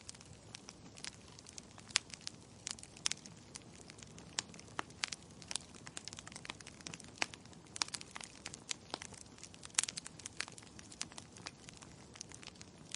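Wood fire burning in a fireplace: frequent irregular crackles and pops from the burning logs over a soft steady hiss.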